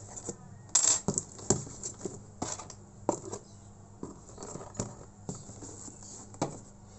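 Packing tape on a cardboard shipping box being slit and the flaps pulled open: a run of irregular sharp scratches, crackles and clicks, the loudest about a second in.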